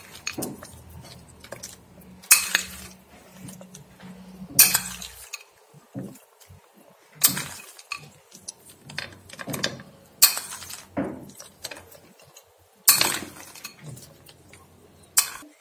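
Metal spoon clinking against a small glass bowl as fried almonds are scooped out and scattered over a dish: six sharp clinks a couple of seconds apart, with lighter ticks between.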